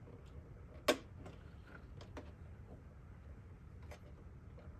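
Handling noise on a Necchi K132A sewing machine as the needle thread is pulled out: one sharp click about a second in, then a few fainter clicks and taps.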